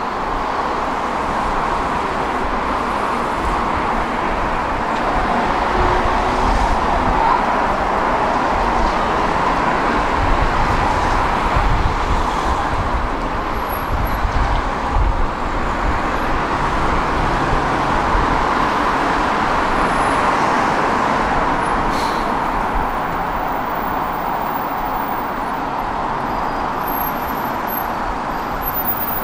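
Tram running along its tracks: a steady rumble and rolling noise that grows a little louder in the middle and eases off near the end.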